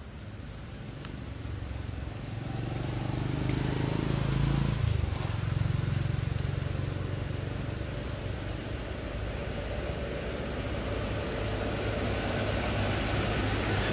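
Low engine rumble of a motor vehicle, building up over the first few seconds. It is loudest about five seconds in, where its pitch drops, then goes on steadily.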